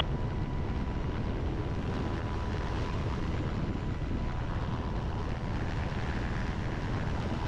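MH-60 Jayhawk helicopter in a hover, its rotor and turbine engines giving a steady noise heard from the open cabin door, with wind on the microphone and a faint steady whine.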